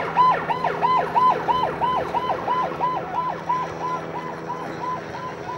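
Ambulance siren on a fast yelp, about five rising-and-falling wails a second, loudest at first and fading as the ambulance drives past.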